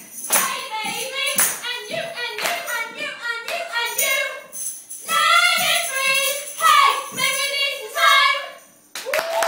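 Women singing, with a tambourine struck in rhythm through the first half. The singing stops about nine seconds in and applause starts.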